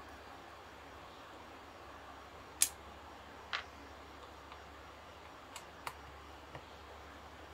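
Sharp clicks and taps of plastic parts and tools as the plastic casing of a Bluetooth speaker is taken apart by hand. There is one loud click a few seconds in, a second soon after, and a few lighter ones near the end, over a faint steady hiss.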